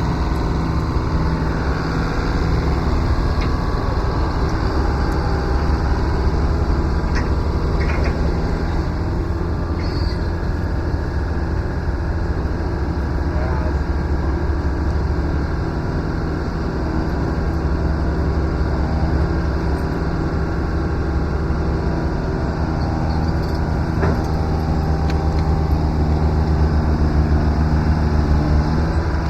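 Koehring 405 dragline's engine running under working load, a steady low drone that swells louder and eases off several times as the machine works.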